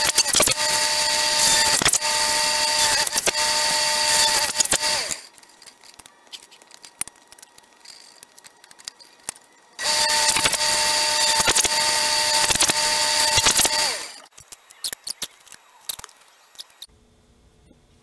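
Drill press running with its bit boring into square wooden handle stock, in two stretches of about five and four seconds, each a steady whine over a cutting rasp. Between and after the runs there are only light clicks and knocks.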